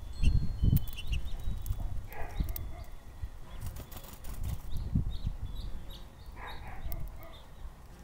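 Small songbirds at a seed feeder chirping in short high calls, with a louder, lower call about two seconds in and another near the end. Irregular low thumping and rumble runs underneath and is loudest in the first second.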